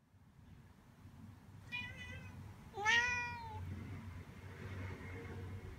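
Orange tabby cat meowing twice: a short faint call about a second and a half in, then a louder, longer one about a second later.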